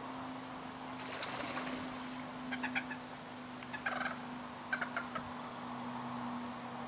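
Common moorhens, an adult with its downy chicks, calling in short clipped notes during feeding. The notes come in three quick clusters through the middle, over a faint steady low hum.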